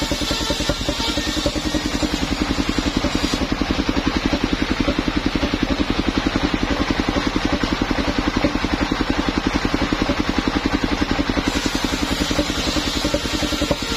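Engine-driven portable circular sawmill running steadily with a fast, even chugging. The blade is cutting a log, adding a higher hiss, for the first three seconds or so and again from about eleven seconds in, and runs without that hiss in between.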